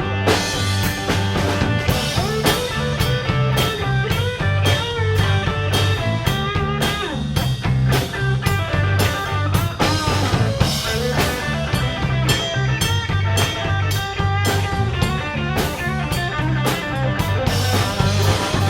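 Live rock band playing an instrumental break: a guitar lead with bent notes over bass and a steady drum-kit beat.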